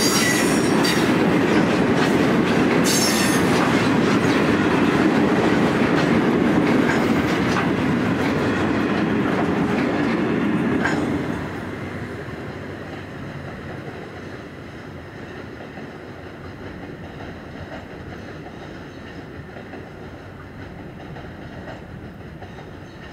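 Loaded grain hopper wagons of a freight train rolling past, wheels clicking over rail joints with some squeal from the wheels. About eleven seconds in, the last wagon passes and the sound drops sharply to a fainter rumble as the train draws away.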